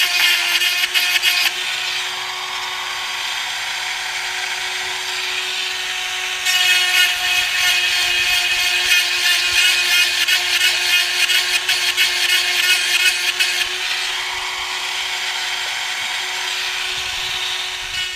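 Husqvarna 372XP two-stroke chainsaw with a 28-inch bar running at high revs while milling a walnut log. It is louder and buzzier for the first second or so and again through the middle, and drops to a lower level in between.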